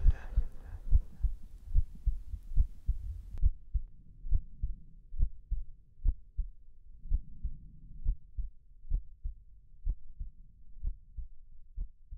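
Heartbeat sound effect: low double thumps repeating steadily about once a second. A faint low drone beneath them drops away a few seconds in.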